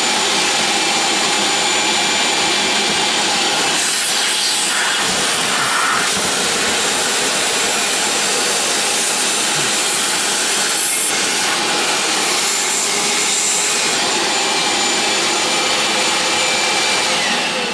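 Shop vac running steadily with a high whine, some changes in its sound partway through, then switched off with its whine falling away near the end.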